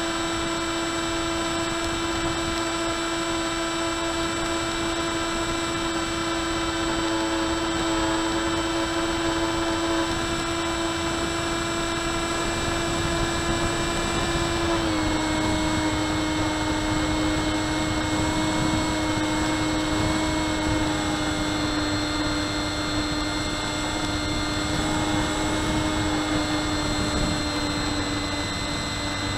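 Electric motor and propeller of an RMRC Penguin FPV plane whining steadily in flight, heard from the camera aboard with rushing air. The pitch steps down slightly about halfway through.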